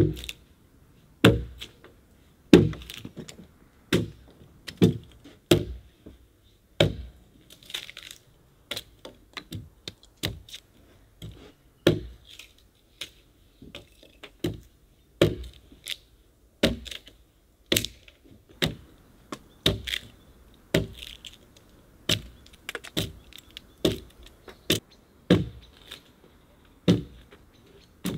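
Chopping blows of a hand tool into a log, as when cutting a notch for the next course of a log wall: sharp, unevenly spaced strikes at about one to two a second.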